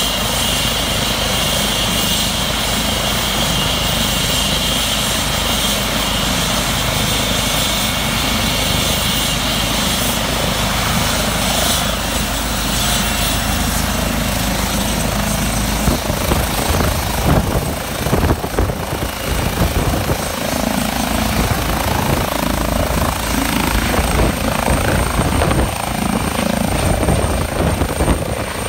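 A Eurocopter EC135 twin-turbine helicopter runs on the ground: a steady rotor thrum with a high turbine whine over it. From about halfway the sound turns gusty and uneven as power comes up for lift-off, with rotor downwash buffeting the microphone.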